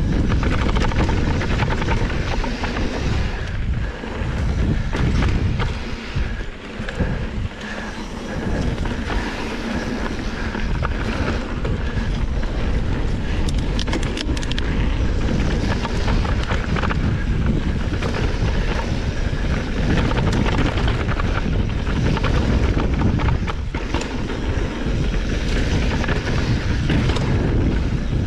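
Mountain bike riding fast down a rough dirt trail: wind on the microphone and tyre rumble over the ground, with rattling clatter from the bike over the bumps.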